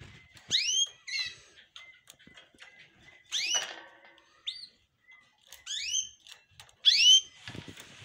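Domestic canaries calling: sharp rising chirps, about six of them, with a short rattling trill about a second in, the loudest chirp near the end. Rustling from the cage being handled comes in at the very end.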